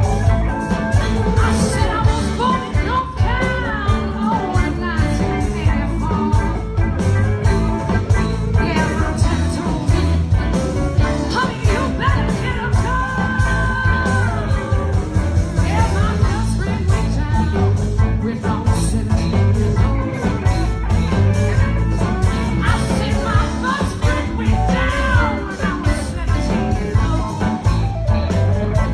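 Live blues band playing, with a woman singing lead over electric guitar, bass guitar and drum kit.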